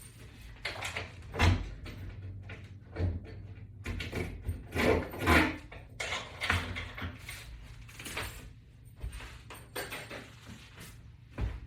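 Irregular knocks, clunks and scraping as the latch bar and its mini wall mount are handled and taken down from the wall, with a few louder knocks spread through.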